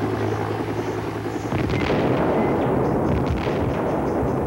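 A helicopter drones until about a second and a half in, when a detonation breaks in and rumbles on, with sharper cracks around three seconds in. The sound is taken for mortar fire, two detonations.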